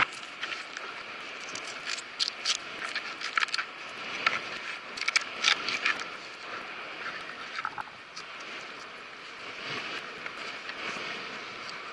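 Knife cutting through a frigate tuna and scraping on a plastic cutting board while the fish is filleted: a run of short sharp clicks and scrapes, busiest about two to six seconds in and thinning out after about eight. Under it, the steady wash of the sea.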